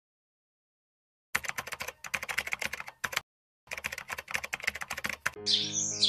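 Rapid computer-keyboard typing clicks in two runs with a short pause between them. About five seconds in, the typing gives way to birds chirping over music.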